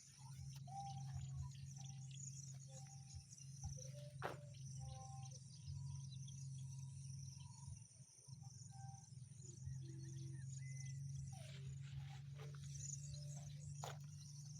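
Faint outdoor ambience: insects chirping steadily in a high pulsing drone, with scattered short bird calls and a low steady hum underneath.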